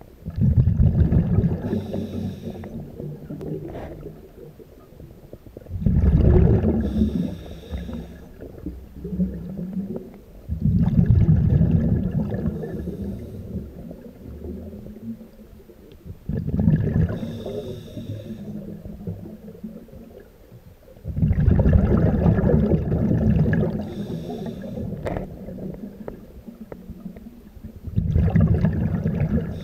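Scuba diver breathing through a regulator, heard underwater: six loud, low, bubbling exhalations about every five seconds, with a fainter regulator hiss around each breath.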